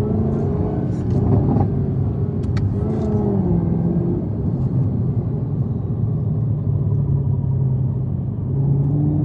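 Muscle-car engine rumbling in slow traffic. Its pitch rises and falls once about three seconds in as it is revved, then holds steady and climbs a little near the end.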